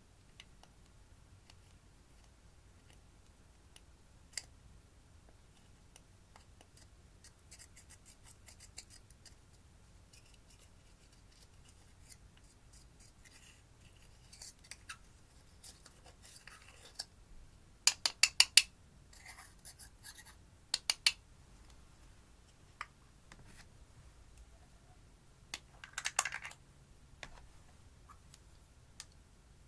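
Slime with eyeshadow mixed in being worked by hand: sparse sticky clicks and small pops, with short clusters of sharp crackles a little past the middle and again later.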